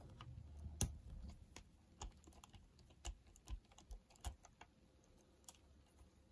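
Faint scattered clicks and taps of a small screwdriver and fingertips working on the metal chassis of a Sanyo M3330 cassette player's tape mechanism, with a low handling rustle in the first second. The clicks come irregularly, a few a second at first and thinning out after about four and a half seconds.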